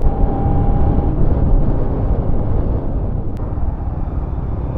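Riding noise of a Bajaj Pulsar RS200's single-cylinder engine under way, heard from a camera on the moving bike, with heavy wind rush. The noise swells at the start and then slowly eases off.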